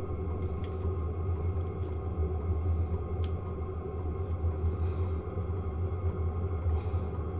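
12-volt WIPPRO diesel heater running, a steady low hum from its burner and blower, with a few faint ticks.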